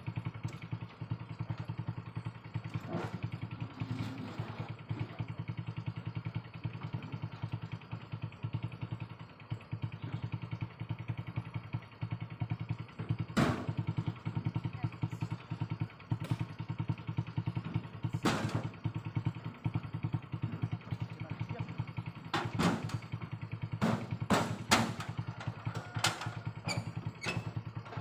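Honda Revo 110cc single-cylinder four-stroke engine of a homemade mini truck running steadily. Sharp knocks and clatter come at intervals, in a quick cluster near the end.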